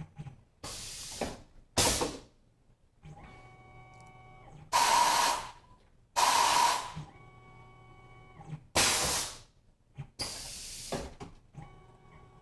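Tormach PCNC 1100 automatic tool changer doing a tool change. Six sharp hisses of compressed air come from the pneumatic carousel and drawbar as the tool is released and clamped, with a steady electric motor hum between several of them.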